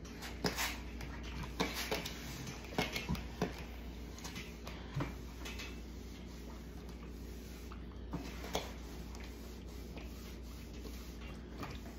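Clothes iron worked over fabric on an ironing board: scattered light knocks and taps as it is set down and pushed along, most of them in the first half, with a couple more later, over a steady low hum.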